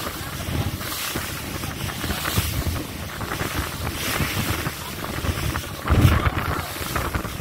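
Wind buffeting the microphone and water rushing past the hull of an inflatable boat running over open sea. About six seconds in comes a louder thud and splash as the hull slaps a wave and throws up spray.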